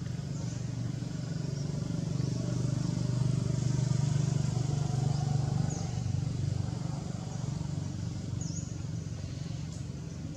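A motor vehicle engine droning low, swelling to its loudest about halfway through and then fading, as a vehicle passing some way off. Short high chirps break in every few seconds.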